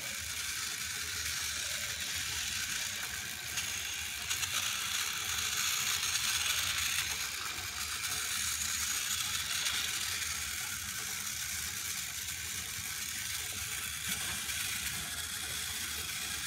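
Battery-powered Thomas & Friends motorized toy trains running on plastic track: the steady, high whir and rattle of their small motors and gears. A few light clicks come about four seconds in.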